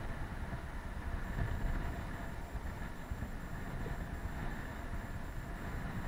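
Steady low wind rumble on the microphone mixed with the wash of rough sea against the hull of a Moody 44 sailing yacht making way under sail. A faint, evenly pulsing high-pitched tone comes in about a second in.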